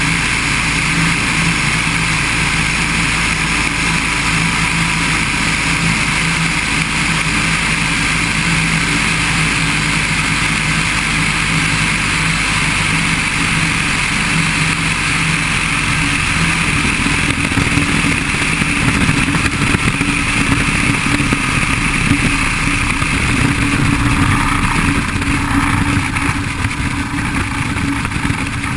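Open-cockpit biplane's piston engine and propeller running, with wind rushing past the cockpit. About halfway in the steady engine tone fades and a rough rumble takes over as the plane rolls along the runway after landing.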